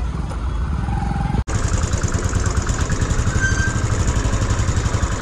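Motorcycle engine running at low speed with a steady pulsing beat, broken by a sudden short dropout about a second and a half in, after which the beat is stronger.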